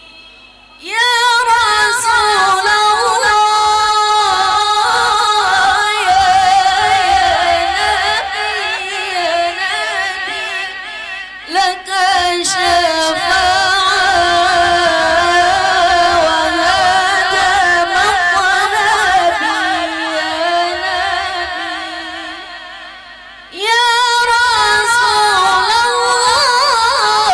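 A woman reciting the Qur'an in the melodic qira'ah style, her voice sliding and ornamenting through long phrases sung on one breath. The voice breaks off and starts a new phrase about a second in, again around eleven seconds, and near the end.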